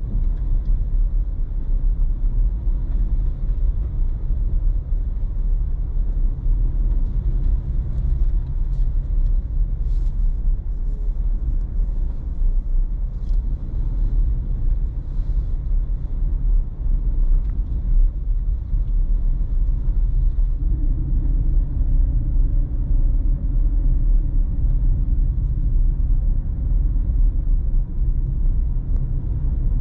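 A car driving along a road: a steady low rumble of tyres and engine that starts abruptly, with a few faint ticks in the first half.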